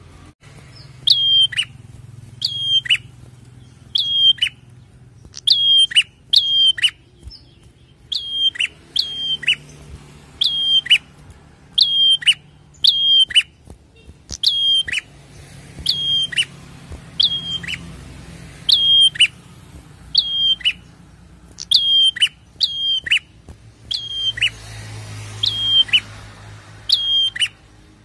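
Prenjak calling repeatedly: loud, sharp notes in pairs or threes every second or two. Each note is a quick high flick that drops into a short whistle and falls away.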